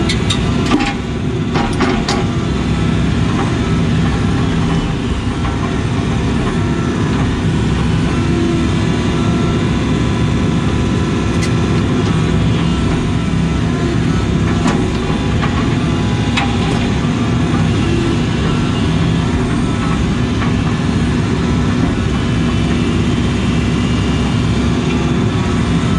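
Case CX80 excavator's diesel engine running steadily while the boom and bucket are worked, heard from inside the cab. A few sharp knocks come in the first couple of seconds.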